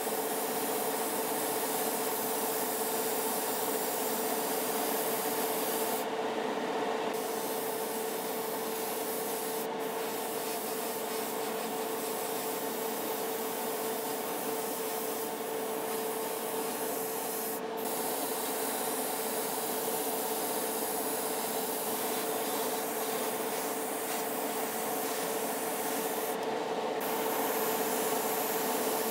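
Spray booth extractor fan running with a steady hum, under the hiss of an airbrush spraying paint onto small model-car parts. The high hiss drops out briefly a few times.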